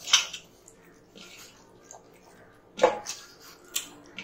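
A ripe tomato being squeezed and mashed by hand in a stainless-steel bowl: a few short wet squelches, with sharper ones at the very start and near three seconds in.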